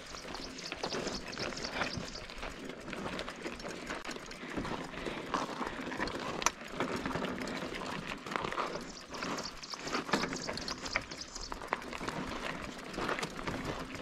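Mountain bike riding over a rough dirt track: a steady rustle of tyres on dirt and gravel with scattered clicks and rattles, picked up by a chest-mounted GoPro.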